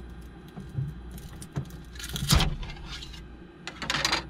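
A hand-held scraper sliding under a freshly 3D-printed black ABS bushing on the printer's build plate, prying it off the bed with scraping and clicking. The loudest scrape, with a knock, comes about two seconds in, and there is another scraping burst near the end.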